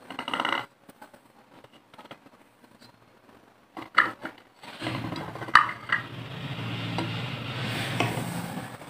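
Handling noise close to a clip-on microphone: a few light clicks and knocks, then from about halfway a steady rubbing and scraping as hands move over the plate of clay lollipops.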